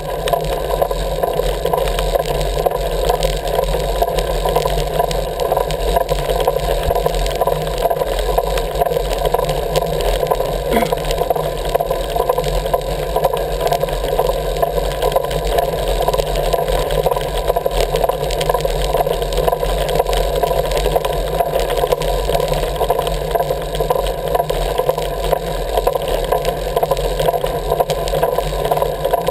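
Steady road and wind noise with a rattle from a camera riding along a paved road, unchanging throughout.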